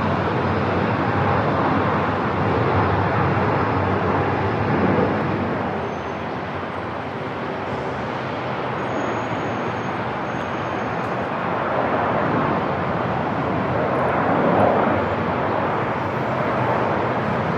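Airport ambience: a steady wash of noise that ebbs slightly, then swells again.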